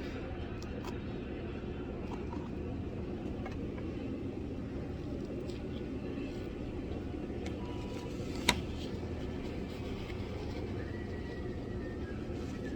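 Salad being eaten: faint clicks and crunches over a steady low background rumble, with one sharp click about eight and a half seconds in.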